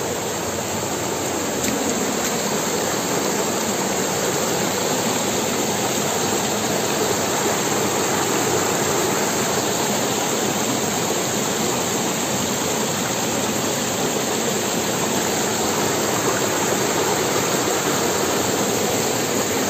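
A river rushing over rocks: a loud, steady roar of running water.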